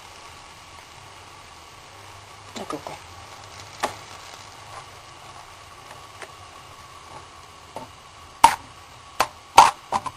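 Tomato sauce and bean water sizzling faintly in a steel frying pan, with a few light clicks, then three sharp knocks near the end as a utensil strikes the metal pan.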